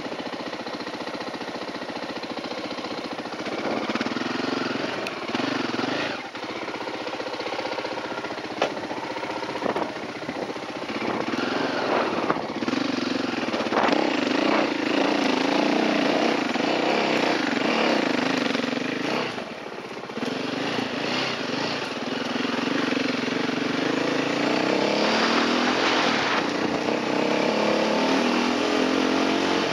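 Enduro dirt bike engine ticking over, then pulling away about three seconds in and running with rising and falling revs as the bike rides a rough dirt trail, with short drops in throttle near 6 and 20 seconds. A few sharp knocks stand out briefly along the way.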